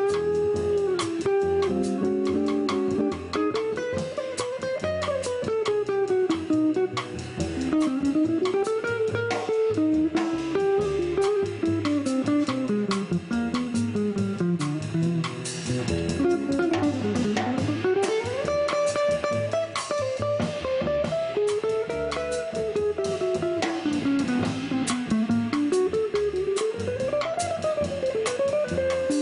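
A small jazz group playing live: archtop guitar, upright double bass and drum kit, with a melody line winding up and down over the rhythm.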